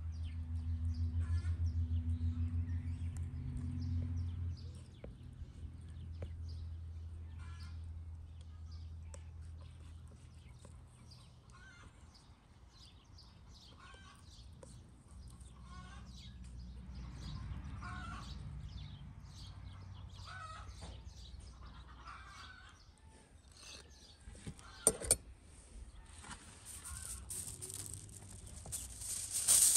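Chickens clucking and small birds chirping in the background, with a low droning hum in the first few seconds. Near the end a sheet of aluminium foil is unrolled and crinkles loudly.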